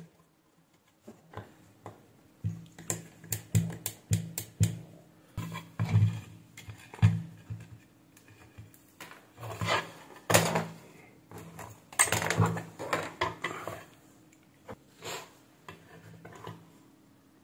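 Irregular clicks, knocks and rattles of plastic and glass parts as a digital bathroom scale's base, feet and glass top plate are handled and fitted back together. The densest clatter comes near the middle, then it thins out.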